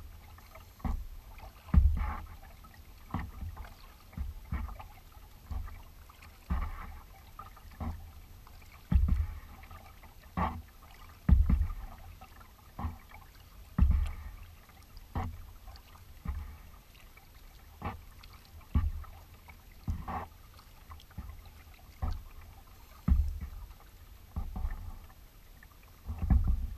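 Kayak being paddled at an even pace: a splash and a low thump with each paddle stroke, about one a second.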